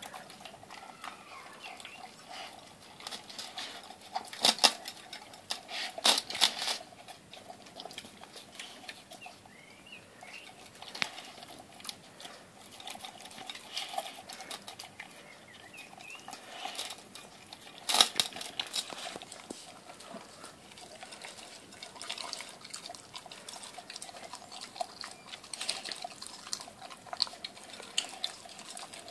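Dog eating a wet, chunky raw meat and fruit mix from a glass dish: steady chewing and smacking with many small clicks of teeth and tongue, and a few louder clicks about four, six and eighteen seconds in.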